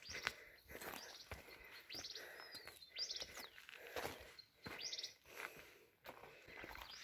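Footsteps on a rocky trail at walking pace, with a bird calling short high trills three times.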